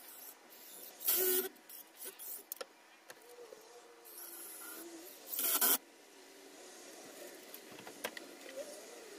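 Cordless drill driving screws into a wooden post in two short bursts, about a second in and again about five seconds later.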